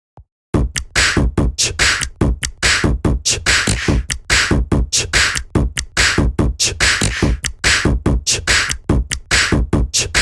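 A LineageOS 14 phone ringtone playing: a fast, electronic drum-machine-style beat of repeated percussive hits with heavy bass, starting about half a second in.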